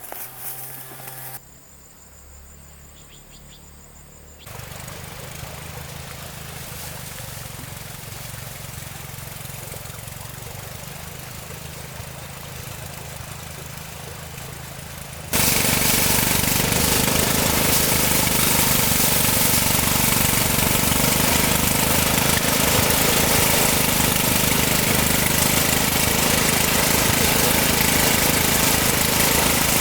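A small engine running steadily. It comes in loud and even about halfway through, after a quieter stretch with a low hum.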